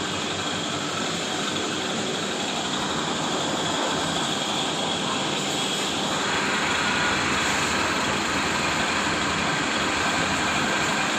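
Panasonic Active Foam 8 kg washing machine spinning empty, with a steady, loud mechanical whirring noise that the owner traces to a faulty gearbox. The sound turns a little brighter about six seconds in.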